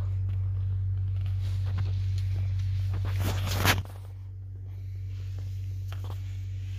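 Rustling of a handheld camera being moved against blankets or fabric, over a steady low hum. A louder rustle builds about three seconds in and stops abruptly, and the hum drops right after it.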